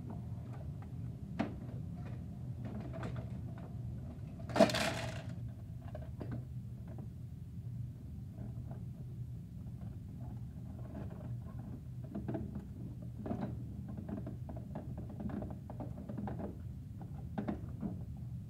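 Plastic Bruder toy garbage truck being handled by hand: scattered light clicks and knocks of its plastic parts, with one louder scraping rustle about four and a half seconds in, over a steady low hum.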